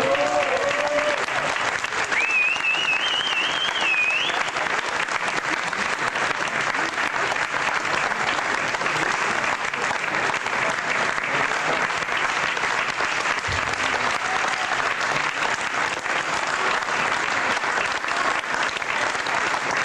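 Audience applauding steadily, with voices mixed in. A high wavering tone sounds over the clapping for about two seconds near the start.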